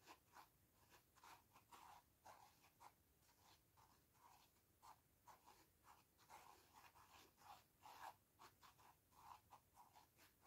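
Faint, quick, irregular dabbing of a paint-loaded sponge against a phone case, a few soft dabs a second.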